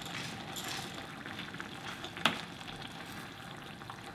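Spicy pork and kimchi bubbling and sizzling in a shallow pan as a wooden spoon stirs through it, with small clicks and one sharp knock about two seconds in.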